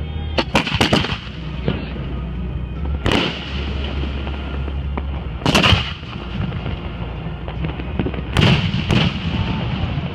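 Fireworks going off in a series of sharp bangs: three in quick succession near the start, single bangs about three and five and a half seconds in, and a close pair near the end.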